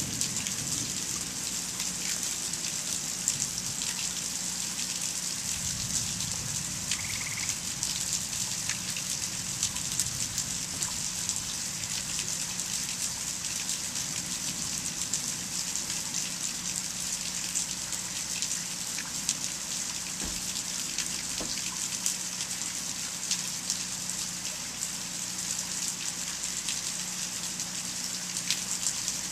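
Steady thunderstorm rain: a dense, even hiss with many sharp ticks of individual drops striking surfaces.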